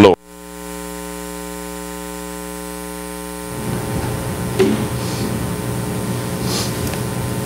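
Steady electrical mains hum, with a short loud thump right at the start. About three and a half seconds in, a broader noise of the room joins the hum.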